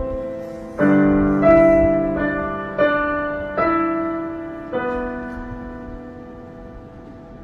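Upright piano keys pressed by a cat's paws: about six struck notes and clusters at uneven intervals, each ringing on and fading, the last about five seconds in and then dying away.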